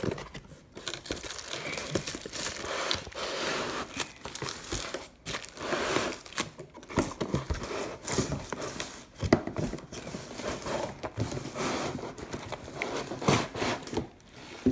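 Packaging being pulled and worked open by hand: irregular crinkling and tearing, with scattered sharp clicks and knocks.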